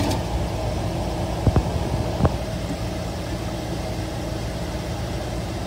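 Off-road SUV engine running at low revs as the vehicle crawls slowly down a steep rock slope, with two sharp knocks about a second and a half and two seconds in.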